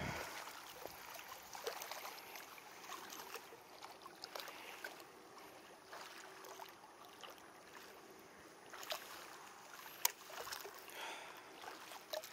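Water lapping faintly against the hull of a small boat, with scattered small ticks and one sharper click about ten seconds in.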